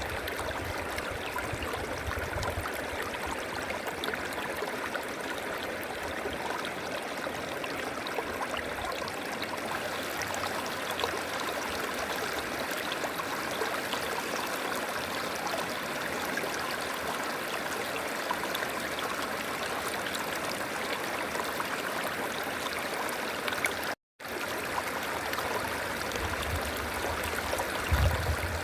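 River water flowing steadily over rocks, an even rushing and babbling, broken once by a split-second cut to silence about 24 seconds in.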